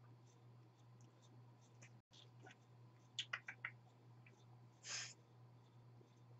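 Near silence over a low steady hum, with a few faint plastic clicks a little over three seconds in as a clear-lidded makeup compact is handled, and a short soft rustle about five seconds in.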